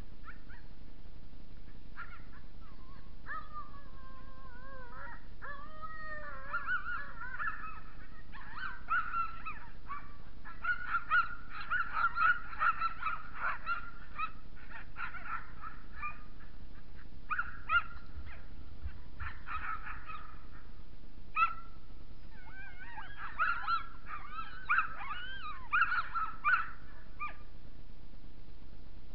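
A team of sled dogs howling, whining and yipping, many voices overlapping in gliding, wavering calls that start about two seconds in and come in waves, the excited clamour of harnessed dogs waiting to run while the sled stands still.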